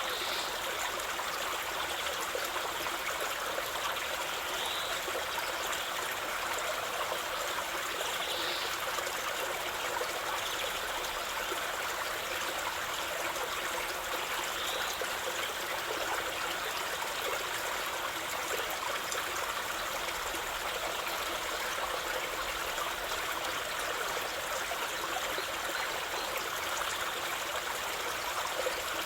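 A stream of running water flowing steadily, an even rushing trickle with no change in strength.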